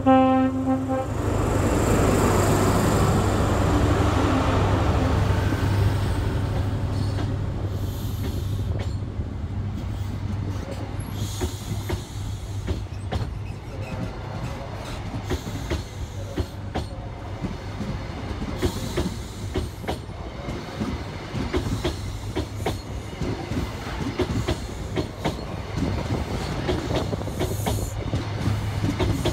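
A class 43 HST power car's two-tone horn ends about a second in. The power car's diesel engine then runs hard under load as the train pulls out. Mk3 coaches follow, rolling past with a steady clickety-clack of wheels over rail joints.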